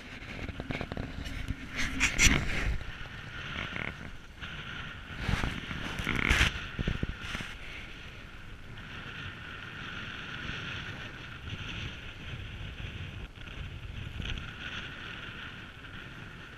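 Outdoor sound on a small fishing boat: wind and water noise, with a cluster of sharp knocks and rattles in the first few seconds and again around the middle, then a steady hiss.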